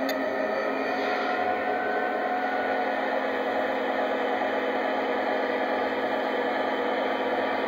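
Electronic diesel engine sound from an O scale model locomotive's onboard speaker: a steady, even engine rumble from a stationary locomotive.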